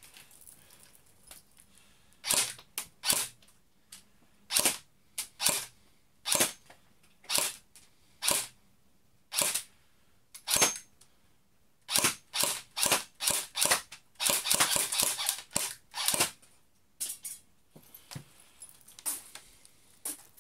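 Cyma CM030 electric Glock 18 airsoft pistol firing, shot after shot with uneven gaps, then a dense run of rapid shots lasting about two seconds past the middle.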